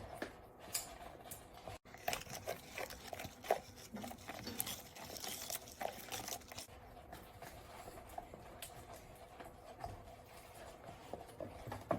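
Faint, irregular sticky clicks and soft smacks of a spoon stirring glue slime in a container, as the contact lens solution activates it and it starts pulling off the sides.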